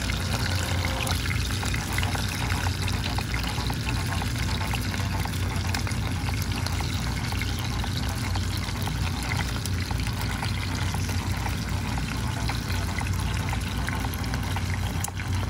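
Chicken wings sizzling and crackling steadily as they shallow-fry in hot oil in a pan, over a steady low hum.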